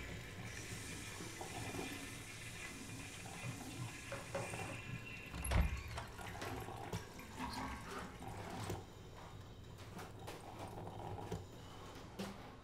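Water running for about four seconds and then stopping, followed a second later by a single dull thump; faint clicks and knocks come and go throughout.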